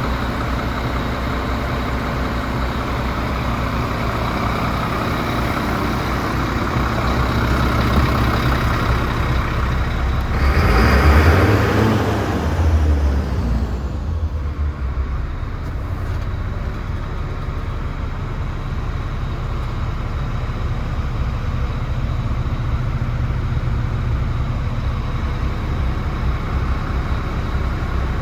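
DAF CF75 lorry's turbo diesel engine idling steadily, with a brief louder surge of noise about eleven seconds in that dies away by about fourteen seconds.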